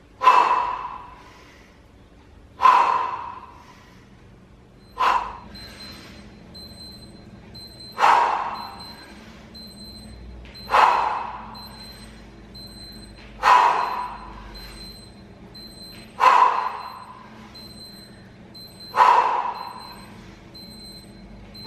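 A man breathing out sharply, once per rep of a one-arm kettlebell squat: eight forceful exhalations, each cut off quickly, about every two and a half to three seconds.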